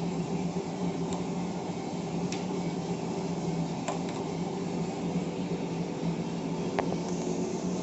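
Coffee roasting machine running, a steady motor hum with a few faint clicks.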